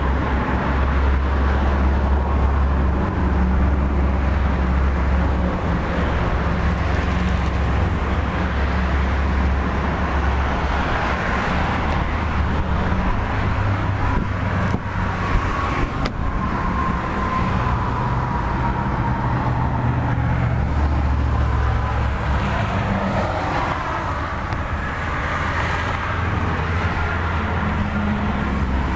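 Chevrolet Tornado compact pickup's engine running, a steady low drone whose pitch steps up and down a few times, with a noisy rush over it.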